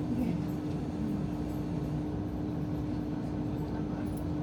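Steady interior noise of a Sanriku Railway diesel railcar: a constant low rumble with a steady droning hum.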